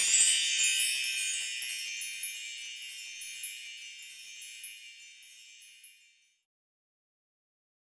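A high, shimmering chime twinkle of many quick bell-like notes, fading away over about six seconds, then silence.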